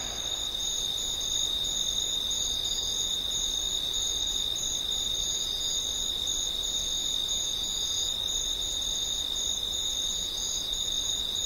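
Crickets trilling in a steady, high-pitched evening chorus: several insects at different pitches, one of them pulsing rapidly.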